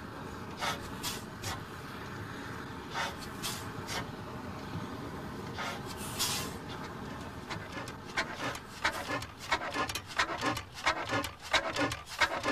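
1895 Hornsby-Akroyd single-cylinder paraffin engine turning slowly: a steady hiss with irregular clicks and puffs, coming quickly one after another in the last few seconds.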